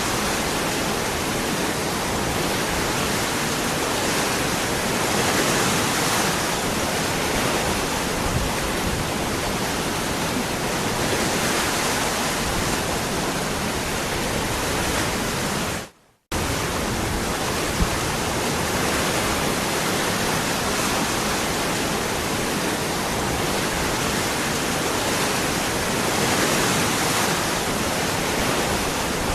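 Waterfall rushing in a steady, even roar of falling water. About halfway through, the sound dips out to silence for a split second and cuts straight back in.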